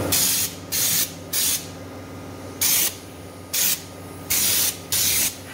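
Air-fed spray gun from a Dominator stone guard kit spraying stone guard coating onto a car's underbody. It hisses in seven short bursts, one with each pull of the trigger.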